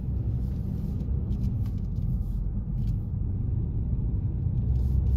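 Steady low rumble of a car on the move, heard from inside the cabin: engine and road noise, growing slightly louder toward the end.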